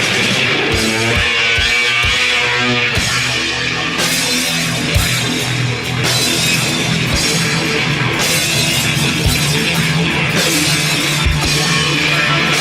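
Heavy rock music: electric guitar over a drum kit, with a wavering sustained pitch in the first few seconds and steady bass-drum hits.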